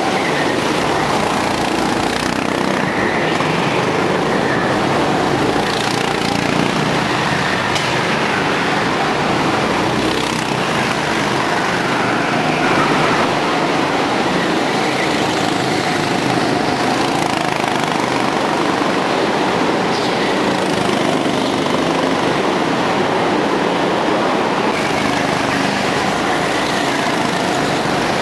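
Several go-kart engines running on an indoor track, overlapping, their revs rising and falling as the karts accelerate and pass.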